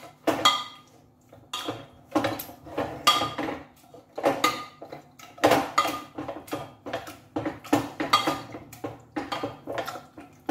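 Metal spatula scraping and knocking against the inside of a pressure cooker as cooked pumpkin is mashed. The strokes come irregularly, roughly two a second, each with a short metallic ring.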